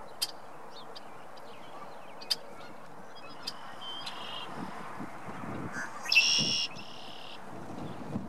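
Male red-winged blackbird calling and singing: a few sharp short call notes, a quieter buzzy phrase, then the loud buzzy trill of its song about six seconds in.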